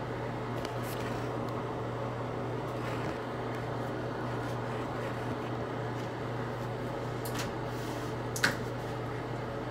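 A steady mechanical hum of room noise, with a few light knocks about a second in and again near the end.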